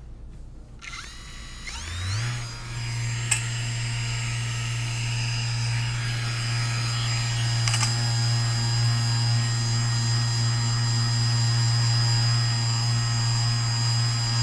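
A small electric motor spins up about two seconds in, rising in pitch, then runs at a steady hum like a handheld power tool. There is a sharp click about three seconds in and another near eight seconds.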